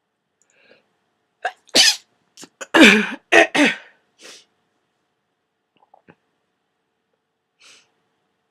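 A person with a cold sneezing hard several times in quick succession, the fit lasting about two and a half seconds, followed by a few faint breaths.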